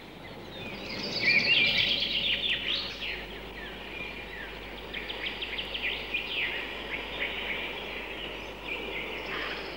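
Birds chirping and trilling in a forest ambience, with many quick repeated chirps over a steady soft hiss, busiest about one to three seconds in.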